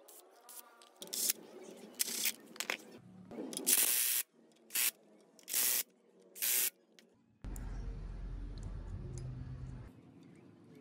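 Short hissing sprays: a few irregular ones, then three short bursts about a second apart, followed by a low steady hum for a couple of seconds that cuts off.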